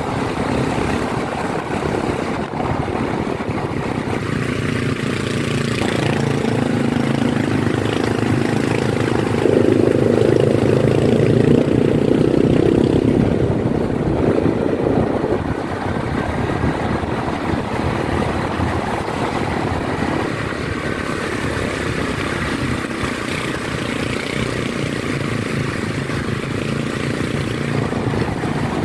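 Motorcycle engine running steadily while riding, growing louder for several seconds around the middle before settling back.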